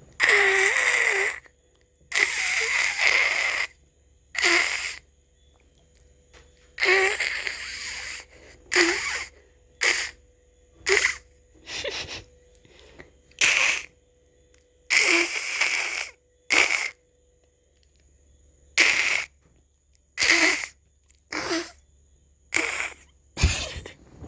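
A woman imitating a cat's hiss at her cats, over and over: about sixteen hisses, the first few long and drawn out, later ones short and clipped, several starting with a brief throaty catch. A low bump sounds near the end.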